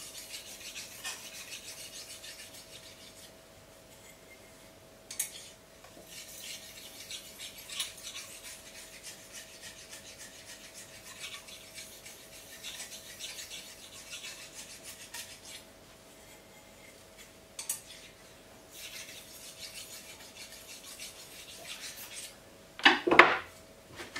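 Fine polishing stone rubbed lightly in small circles up and back along a steel steak-knife edge held in a sharpening jig, a soft, hissy scraping that comes in stretches with short pauses. This is the final polishing stage, taking out the scratch pattern to give a highly polished edge. Near the end there is a single loud knock.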